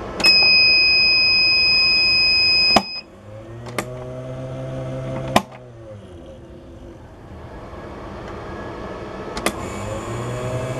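CD-R King RS 1000VA sine-wave inverter giving one long, loud, high beep for about two and a half seconds as it is switched on, followed by relay clicks and the low hum of the water pump it powers. The hum cuts out with a click about halfway and comes back near the end.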